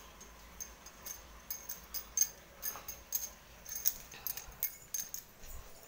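Irregular light clicks and clinks, a dozen or more sharp ticks at uneven intervals, over a low steady hum.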